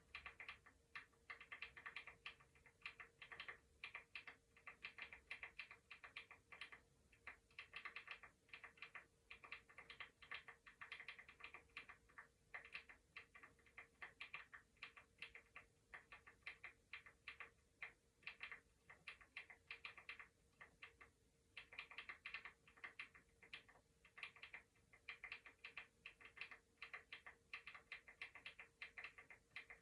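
Computer keyboard typing: quick, irregular key clicks in runs with short pauses, over a faint steady hum.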